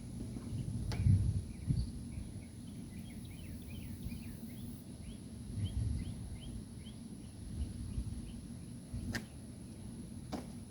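A small bird chirping a rapid series of short high notes for a few seconds in the middle, over low handling bumps and a few sharp clicks.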